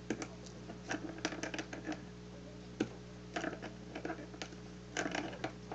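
Pliers tightening the wire connection on a plastic dipole antenna insulator: scattered light clicks and scrapes of metal on metal and plastic, coming in small irregular clusters. A faint steady low hum runs underneath.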